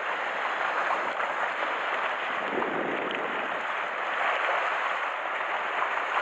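Sea water washing and splashing against the rocks at the waterline, a steady rushing wash that swells briefly about two and a half seconds in.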